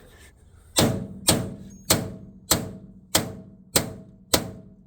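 A steady series of hard hammer blows, about one every 0.6 seconds, each ringing briefly, knocking rivets out of a bus's metal body panel.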